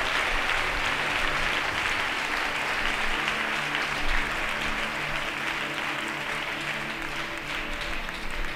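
A congregation applauding steadily, the clapping slowly thinning toward the end, with faint sustained musical tones beneath it.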